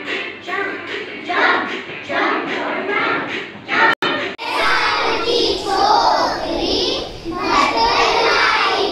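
A group of young children's voices, talking and chattering together. The sound breaks off briefly about four seconds in, and then the children are shouting and singing together in chorus.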